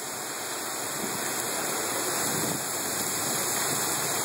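Torrential thunderstorm rain pouring onto pavement, a dense steady hiss that grows gradually louder as the storm intensifies.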